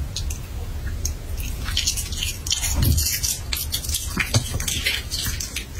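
A Shih Tzu chewing a mouthful of food taken off a fork: a run of quick, small mouth clicks and smacks, busiest in the middle seconds, over a steady low hum.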